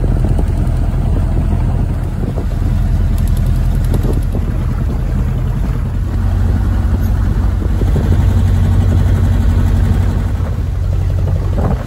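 Small fishing boat's motor running steadily under way, a low drone with the rush of wind and water over it.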